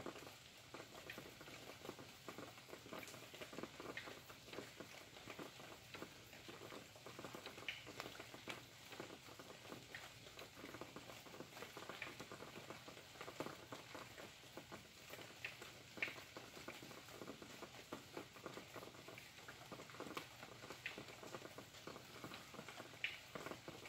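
Faint rain pattering at night: a soft steady hiss dotted with irregular louder drops ticking.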